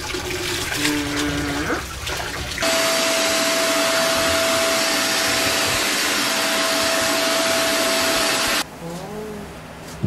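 Deerma DX700 corded handheld vacuum cleaner running: a loud, steady rushing hiss with a high whine held at one pitch. It starts abruptly a few seconds in and cuts off abruptly about a second and a half before the end.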